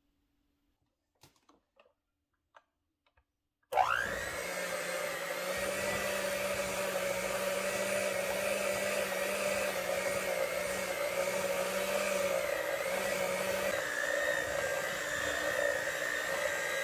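Electric hand mixer switched on about four seconds in, its whine rising briefly as it comes up to speed, then running steadily as the beaters work a stiff peanut butter and cream cheese mixture in a glass bowl.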